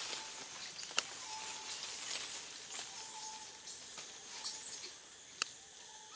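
Outdoor forest ambience: a steady high hiss with a few short, faint chirps and two sharp clicks, one about a second in and one near the end.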